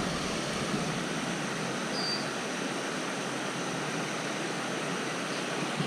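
Steady rush of water pouring through a lake spillway, with a brief faint high chirp about two seconds in.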